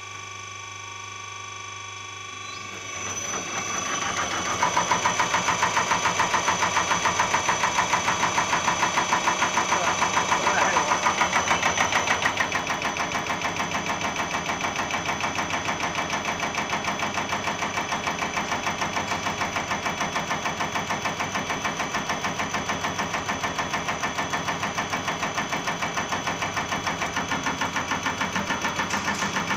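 Diesel injector test bench driving a Cummins electronic unit injector (EUI) through its cam drive at low speed. The drive starts up about three seconds in and settles into a steady, rapid rhythmic mechanical clatter of the injector being pumped and fired. The clatter is loudest for several seconds, then a little quieter from about twelve seconds in.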